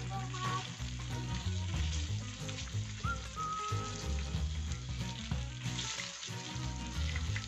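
Whole fish sizzling steadily as they fry in hot oil in a wide black pan, with background music underneath.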